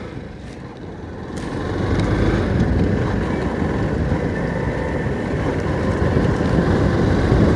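Motorcycle riding along the road, its engine, tyre and wind noise picked up by a camera on the bike. The sound grows louder about two seconds in and then holds steady.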